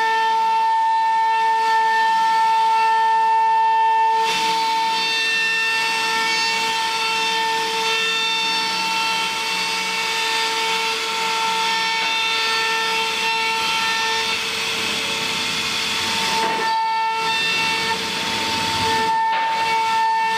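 CNC router spindle running with a steady high whine while its bit cuts a scroll pattern into a wooden board, over a rushing hiss of cutting. The cutting noise thickens about four seconds in and eases briefly twice near the end while the whine carries on.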